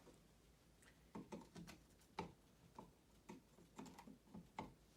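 Faint, irregular light clicks and taps: the plastic tip of a non-contact voltage tester knocking against the light switch and its wires as it is probed around.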